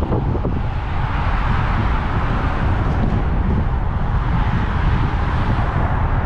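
Wind buffeting the microphone with a heavy low rumble, over the hiss of road traffic that swells through the middle and eases near the end.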